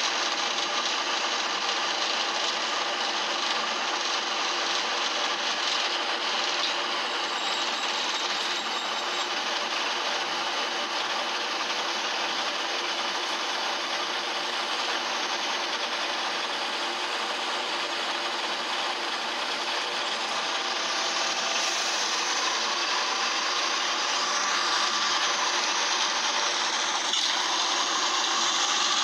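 Optare Solo bus engine heard from inside the saloon, running with a loud, rasping mechanical noise, the sign of the engine fault this bus has. The pitch rises in the last few seconds as the revs climb.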